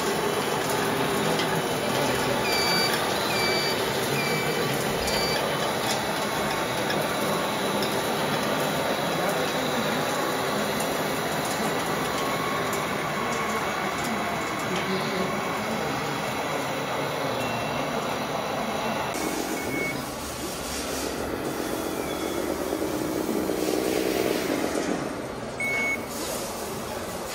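Reversing beeper of a model RC truck's sound module: four short beeps about a second apart a few seconds in, then single beeps later, over a steady background din of running RC machines.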